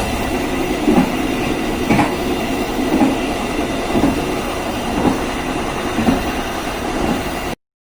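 Passenger train running along the track, a steady rumble with the wheels clacking over the rail joints about once a second. The sound cuts off suddenly near the end.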